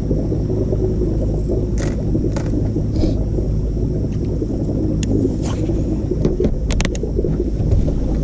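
Steady low hum and rumble of a bass boat's electric trolling motor, carried through the deck, with a few light clicks and taps of tackle being handled.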